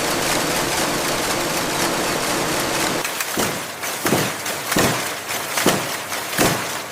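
Industrial machinery running with a steady hum. About three seconds in it changes abruptly to a run of sharp, repeated strokes, roughly one every three-quarters of a second.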